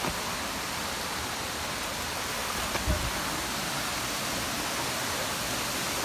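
Stream water rushing steadily over rocks. A single dull thump comes about halfway through.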